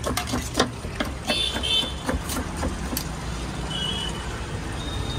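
Quick clinks and taps of a steel spoon against steel bowls and a plate, several in the first three seconds, over a steady low rumble of road traffic. A few brief high-pitched tones sound in the middle.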